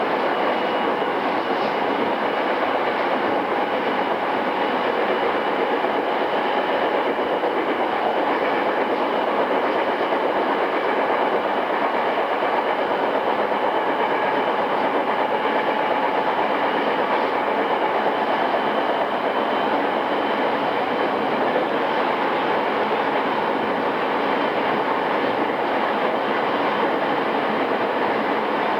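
Running sound inside a JR East E217 series EMU motor car (MoHa E217, original pre-renewal equipment) at steady speed: a constant rumble of wheels on rail with faint steady tones over it.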